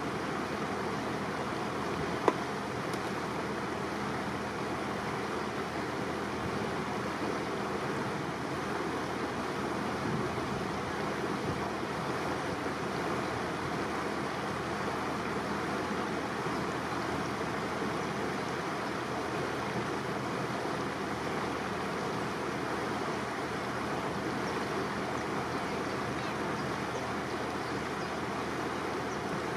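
Steady rush of water and wind heard from aboard a slowly cruising canal boat, with a faint low hum beneath. A single sharp click about two seconds in.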